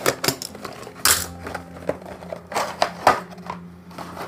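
Snap-off utility knife cutting open a small cardboard blind box: a string of short scrapes and clicks, with one longer scrape about a second in.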